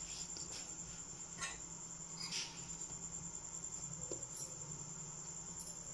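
A steady, high-pitched trill, like an insect's, with a few faint soft ticks from hands rolling a coil of paratha dough into a ball.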